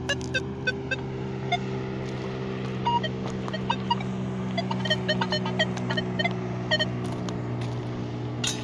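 Nokta Legend metal detector giving a rapid run of short beeps at varying pitches as its coil sweeps over junk-filled ground, over a steady low hum and scattered small clicks.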